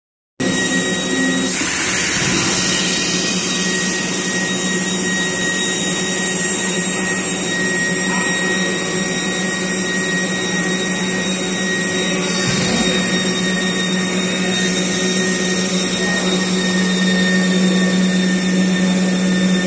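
Sugarcane bagasse tableware forming machine running with a steady mechanical hum and whir, a low steady tone under it, and two bursts of hiss about a second and a half in and about twelve seconds in.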